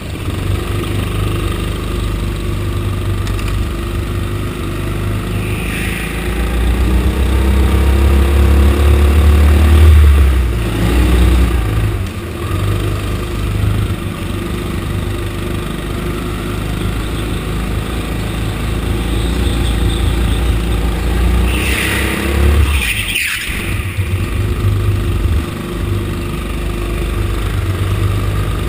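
Go-kart engine heard from on board, running hard and rising and falling with the throttle through the corners, loudest about a third of the way in. A couple of brief squeals cut in, the clearest near the end.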